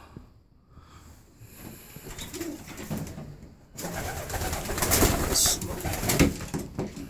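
Young racing pigeons cooing in a wooden loft, with a louder rustling noise from about four seconds in.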